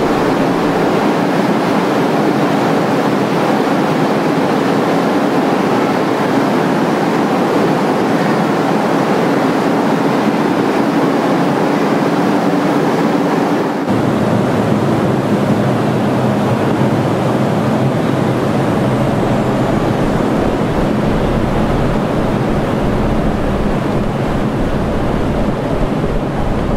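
Vertical-shaft hydroelectric turbine-generator unit running: a loud, steady rushing noise of machinery and water with a low hum underneath. About fourteen seconds in, the low part of the sound shifts and becomes heavier.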